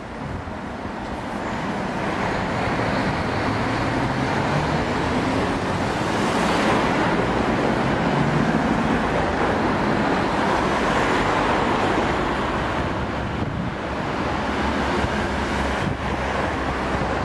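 City street traffic: cars, taxis and buses driving past, a steady mix of engine and tyre noise that swells as vehicles pass close, loudest around the middle.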